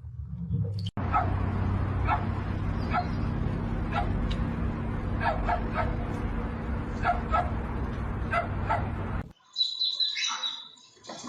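A dog barking in quick groups of two or three short barks over a steady low hum. The sound cuts off suddenly near the end, and a different clip begins with a high chirp.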